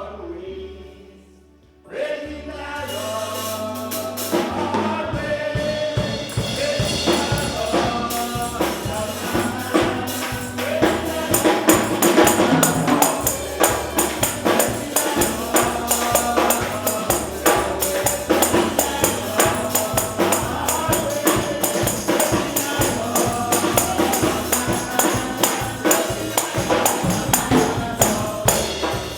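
Gospel praise music: a choir singing over a band, with a tambourine keeping a steady beat. It comes in about two seconds in.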